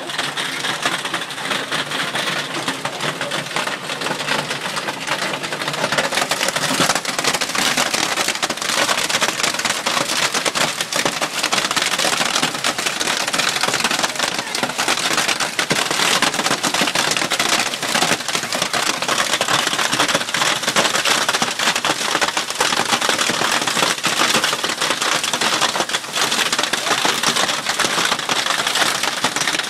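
Hail and heavy rain pelting down steadily: a dense, continuous patter of countless small impacts.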